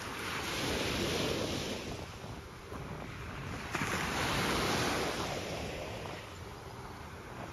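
Small sea waves breaking on a sandy shore and washing up the beach, swelling twice about three and a half seconds apart, with wind rumbling on the microphone.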